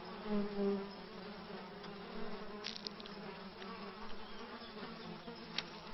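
Biting insects buzzing with a steady low hum that swells briefly near the start, with a couple of faint ticks.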